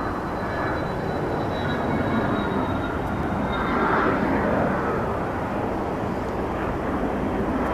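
Boeing 737-800's CFM56-7B turbofan engines running at low taxi thrust: a steady rush with a faint high whine that fades out about halfway through, growing a little louder toward the end.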